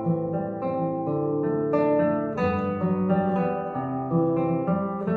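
Alhambra 11P nylon-string classical guitar being played: a run of plucked notes and chords, each ringing on into the next, with a change about every half second.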